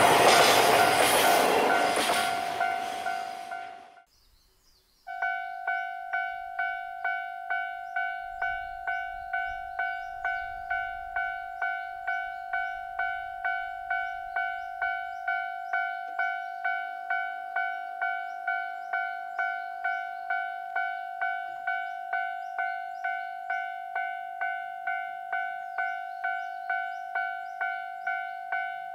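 Container wagons of a freight train rumbling past and fading away. After a short gap, a Japanese level-crossing warning bell starts ringing in a steady, even beat of about one and a half strikes a second as the barrier arms lower, warning of an approaching train, with faint birdsong behind it.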